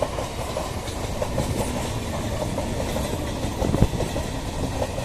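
EMU suburban local train passing, its wheels on the rails making a steady rumble with a rapid run of small clicks, and one louder knock near four seconds in.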